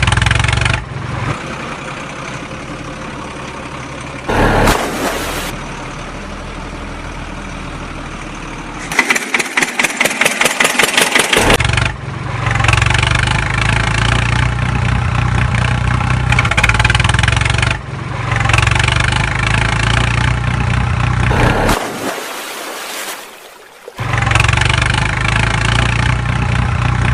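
Vehicle engine sound effect laid over the footage of a plastic toy dump truck, which has no motor of its own. The engine runs steadily in segments that start and stop abruptly, with a stretch of rapid even pulses, about four a second, near the middle, after which it runs louder and fuller.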